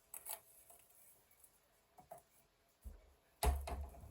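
Faint kitchen handling sounds: a couple of light clicks, then a dull thump about three and a half seconds in.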